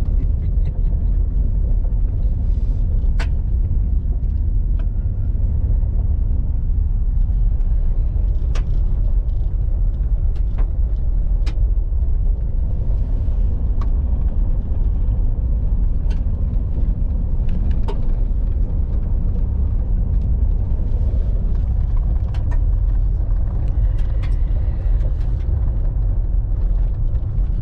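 Car driving on a dirt road, heard from inside the cabin: a steady low rumble of engine and tyres, with scattered sharp clicks and knocks.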